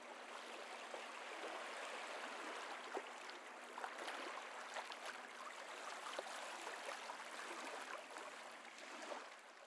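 Faint sea water lapping and sloshing: a steady watery hiss with scattered small splashes and ticks, dropping away just before the end.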